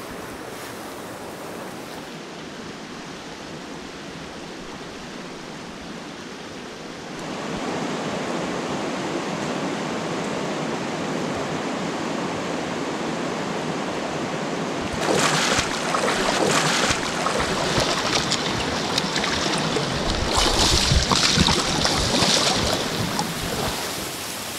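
Mountain stream water rushing over its bed, a steady wash that grows louder about seven seconds in. From about fifteen seconds in, louder, uneven noise made of many short, sharp sounds lies on top of it for several seconds.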